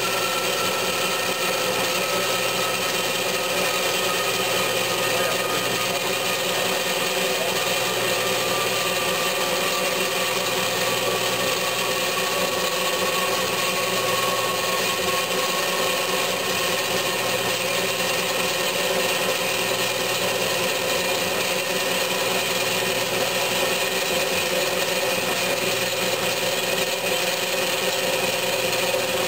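Bianco 330SA band saw cutting through square steel tubing: the blade runs steadily through the metal with a continuous rasping hiss, over which a faint whine slowly drops in pitch.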